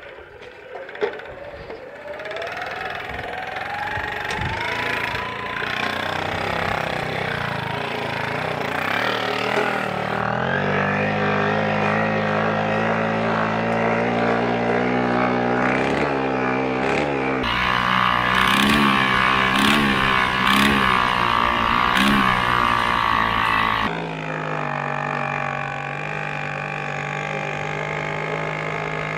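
The 18cc Lohmann two-stroke diesel moped engine being pedalled into life. Its sound builds over the first few seconds, then it runs with a steady note whose pitch shifts a couple of times as the moped rides along.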